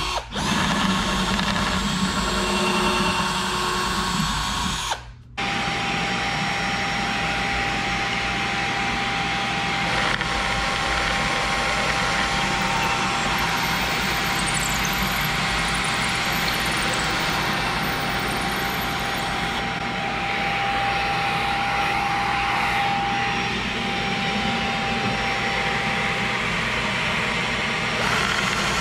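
Power drill running steadily, boring holes through drawer fronts for handles. It breaks off briefly about five seconds in.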